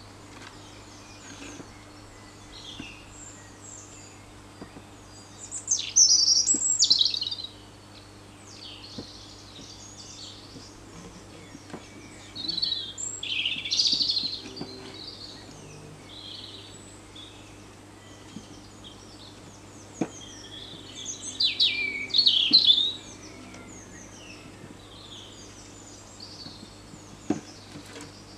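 Garden birds singing: bursts of quick, high chirps and trills, loudest about six, thirteen and twenty-two seconds in, with a few faint knocks between them.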